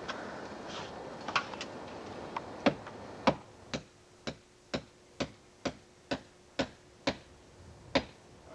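Hammer nailing into a roof's fascia board: a few scattered blows, then a steady run of about ten sharp strikes, roughly two a second, stopping near the end.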